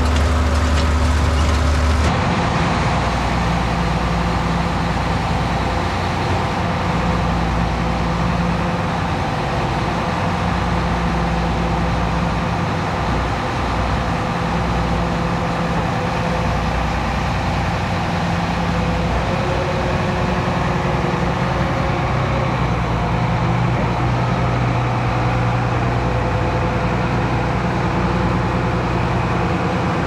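Heavy diesel farm machinery running steadily at a constant engine speed, with a sudden change in the engine sound about two seconds in.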